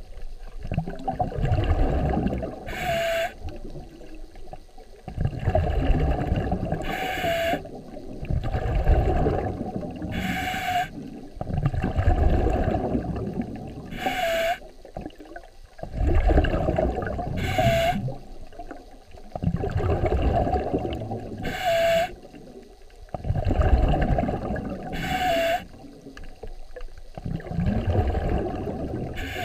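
Scuba breathing heard underwater through a regulator: a long bubbling rumble on each exhale and a short sharp hiss on each inhale, repeating evenly about every four seconds, eight breaths in all.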